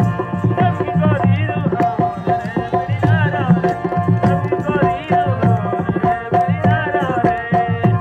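Live Rajasthani folk music: a hand-played dholak drum keeps a steady repeating rhythm under a held harmonium note, with a singer's ornamented, wavering melody above.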